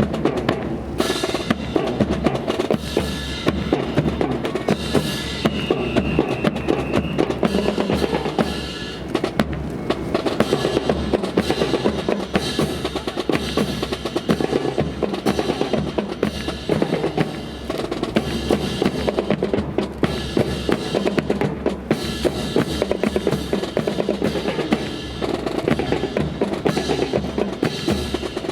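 Fast, continuous drumming with deep bass-drum beats and sharp snare-like strikes.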